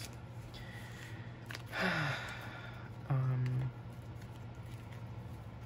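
A person sighing audibly, with a voiced breath that falls in pitch, about two seconds in. About a second later comes a short hummed 'mm' filler sound, all over a steady low background hum.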